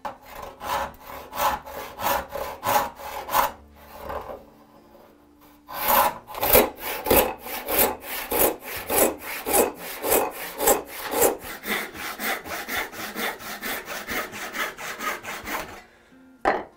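Hand sawing in oak. A large handsaw cuts down into the end grain of a block in steady strokes, about two a second. After a pause of about two seconds, a backsaw crosscuts a block in quicker strokes, about three a second, which stop shortly before the end.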